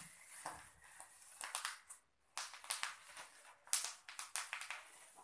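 Clear plastic packaging and bubble wrap crinkling and rustling as they are handled and pulled at, in uneven bursts of crackles with short pauses.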